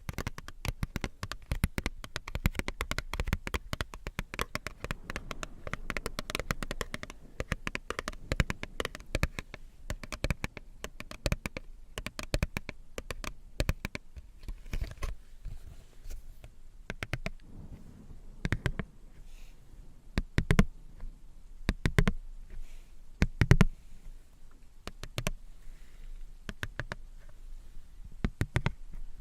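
Close-miked ASMR trigger sounds: a rapid run of small crackles and clicks, thick through the first half, then thinning to scattered louder taps from about 18 seconds in.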